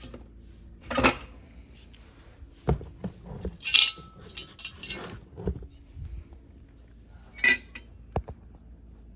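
Metal hardware clinking and clattering while a ceiling fan is taken down: about six separate sharp knocks and clinks, one with a brief ring after it.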